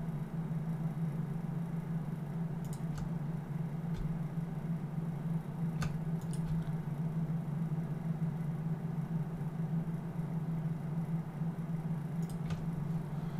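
A steady low electrical hum, with a few faint, short clicks of computer input while the brush strokes are painted.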